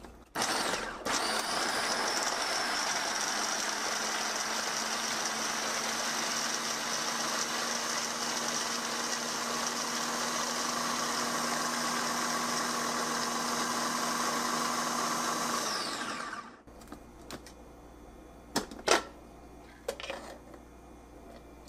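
Philips HR2505 Multichopper's electric motor running its ChopDrop blade through one large hard carrot: a steady whine for about fifteen seconds that then spins down. A few light plastic clicks follow as the chopper is taken apart.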